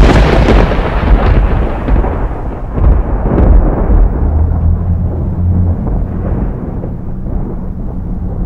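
Loud rumbling noise with no clear pitch, heaviest in the low end, easing slightly toward the end.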